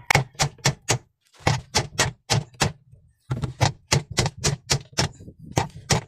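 Claw hammer striking a concrete nail set on a washing machine's rusted pulsator screw, quick repeated blows about five a second in three runs, with short pauses about one and three seconds in. The blows drive the seized screw down to free the gear case.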